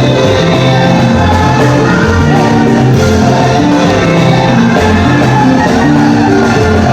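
Loud background music with a strong bass line and singing.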